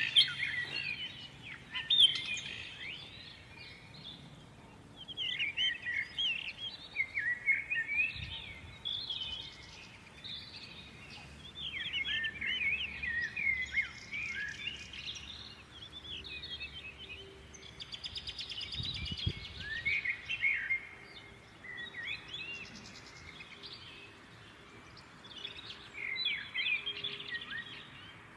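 Small birds chirping and twittering, several calls overlapping in bouts of a few seconds with short lulls between.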